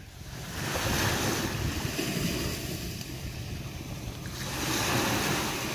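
Small waves washing onto a sandy beach, mixed with wind on the microphone; the wash swells twice, about a second in and again near the end.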